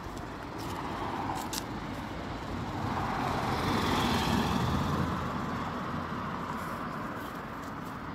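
A road vehicle passing by: a noise that swells to its loudest about four seconds in and then fades away.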